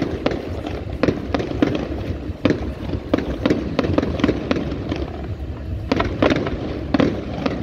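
Fireworks display going off: an irregular run of sharp bangs and reports, about two or three a second, over a steady low rumble.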